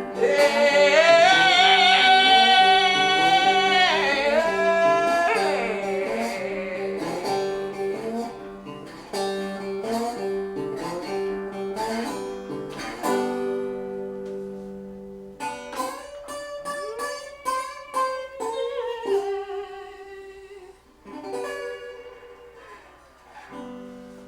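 Slide blues on a resonator guitar in open G: the slide glides and wobbles between notes over a repeating bass note, with a voice humming along in the first few seconds. The playing then thins out into sparser phrases and winds down to the song's ending.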